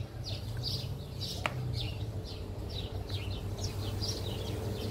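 A small bird chirping over and over in short, high, falling notes, two or three a second, over a low steady rumble. A single sharp click comes about a second and a half in.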